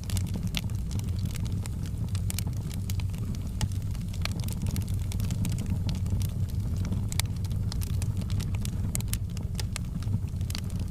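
Fire burning: a steady low rumble with irregular sharp crackles and pops throughout.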